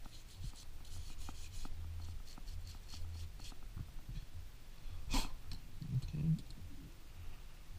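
Small hand-tool scratching and clicking on an iPhone 5s frame as it is cleaned up. A brief sharp noise comes about five seconds in.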